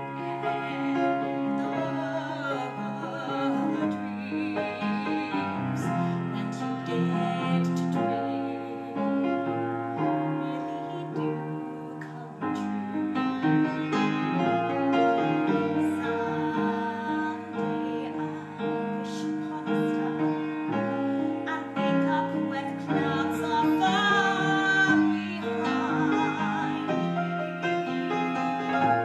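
A woman singing with a wide vibrato, accompanied by a piano.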